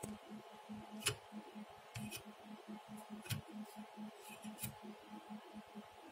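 Faint handling noise: a few sharp clicks and taps as a graphics card and the camera are handled, over a faint low hum that pulses about four times a second.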